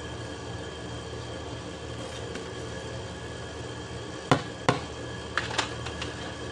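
Two sharp knocks about four seconds in, then a few lighter taps: a plastic cutting board knocked against the rim of a metal pan as frozen chopped leeks are tipped off it. A steady low hum runs underneath.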